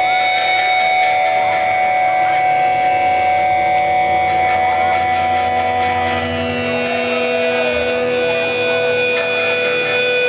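Electric guitar holding long, steady sustained notes through an amplifier, opening a song; about two-thirds of the way through, one held note slides down to a lower one and holds there.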